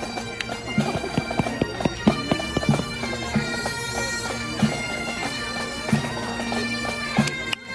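Pipe band playing a march: bagpipes sounding a tune over a steady drone, with regular drum beats. The music stops near the end.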